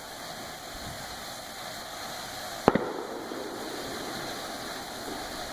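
A firework bursting with one sharp, loud bang about two and a half seconds in, followed at once by a smaller crack, over a steady background hiss.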